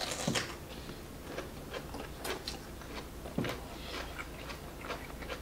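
Chewing and eating mouth sounds: many short, wet clicks and ticks as noodles and food are chewed, with two brief low thumps, one just after the start and one about halfway through.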